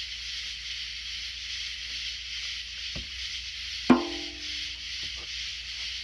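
Night insects chirring steadily, with a few light taps on a drum. About four seconds in, one hard drum stroke rings briefly with a clear pitch.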